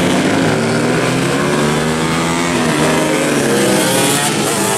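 Two-stroke Yamaha F1ZR road-race motorcycles with racing exhausts revving hard as they pass. Several engine notes overlap, their pitch rising and falling.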